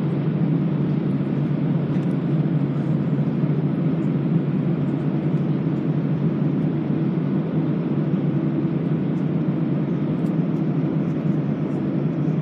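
Steady cabin noise of an Airbus A320 taxiing: an even hum and rush from the engines at low power and the cabin air, with no change in level.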